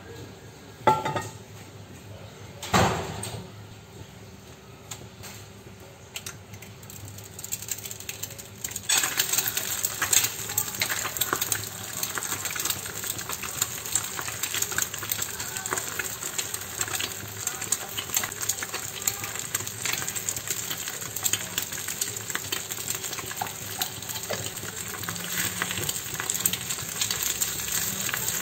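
Two sharp knocks about one and three seconds in, then from about nine seconds an egg frying in hot oil in a small pan, a steady sizzle full of quick crackles and spits.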